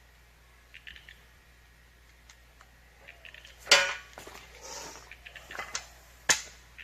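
Two sharp knocks about two and a half seconds apart, with scattered lighter clicks and taps between them.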